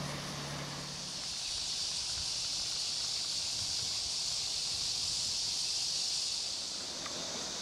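Steady high-pitched insect chorus, a summer cicada drone, swelling a little in the middle and easing near the end. A faint low hum fades out in the first second.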